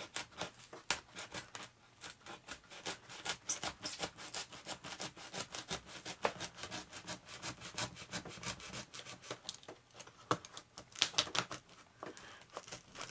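Small hand tool cutting and scraping at burnt, melted foam on a foam RC flying wing: a fast, irregular run of small crackling scrapes and clicks.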